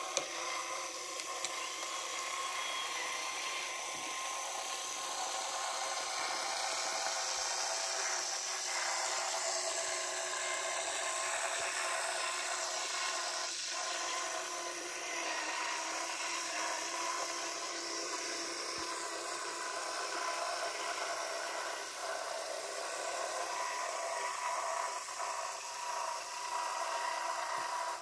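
Small electric motor and gearing of an H0f narrow-gauge model locomotive running, a steady high whine with a gear buzz that wavers a little in pitch and level.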